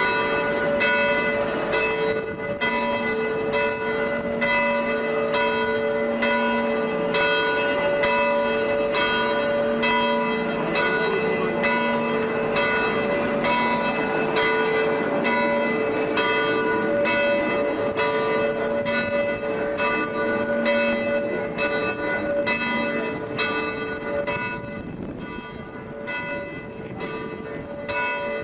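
Several large church bells ringing together in a steady peal, strokes a little more than once a second, with their tones overlapping and hanging on between strikes. The peal gets somewhat quieter near the end.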